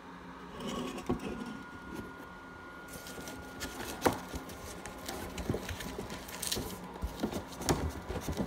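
Aluminium beer cans being handled and set down on a table: scattered light knocks and clicks, with one sharper knock about four seconds in.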